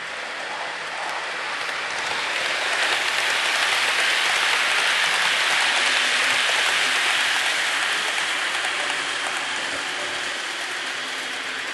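Model railway trains running on the track: a steady hissing rattle of small wheels on rails with motor whirr. It grows louder over the first few seconds, is loudest around the middle, then eases off a little.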